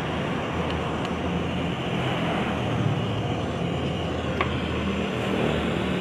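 Small handheld gas torch flame hissing steadily while brazing a copper refrigerant pipe joint, with a faint click about four seconds in.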